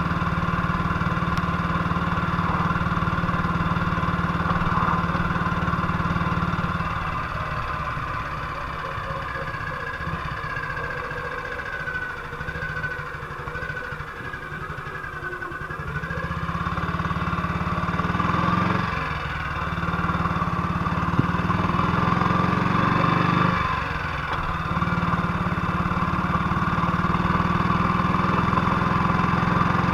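1958 BSA C12's single-cylinder four-stroke engine running, its speed dropping away and picking up again several times. The engine has just been repaired for a misfire and sounds like it used to.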